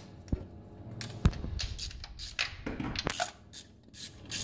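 Scattered clicks and clinks of metal hand tools being handled at the engine's spark plug wells, a spark plug socket on an extension and plug lead, with the sharpest knock about a second in.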